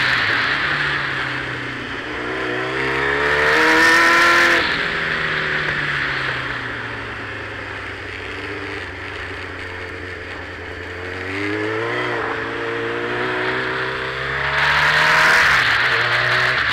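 Motorcycle engine under way, its revs climbing twice as the bike accelerates, with a loud wind rush over the microphone at each peak. It cuts back sharply after the first climb and runs lower and steadier in between.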